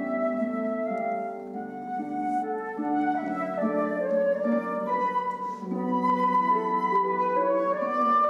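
Flute and concert harp playing classical music together: the flute carries a melody of held notes over the harp's plucked accompaniment.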